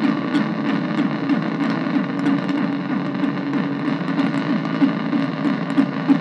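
Analog synthesizer noise drone: an Arturia MicroBrute cross-modulated by a Casper Electronics Nova Drone, heard through a bass practice amp. It is a dense, continuous drone with several steady held tones under a fast, rough flutter, heaviest in the lower register.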